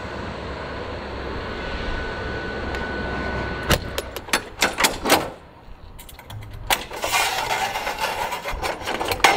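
Steady background hum, then a run of sharp metallic clicks and clanks, and in the last couple of seconds the clatter and rattle of a fire truck's fold-down metal side ladder being pulled down and unfolded.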